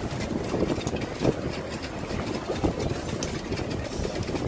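Boat engine idling, a steady low rumble with irregular light crackle.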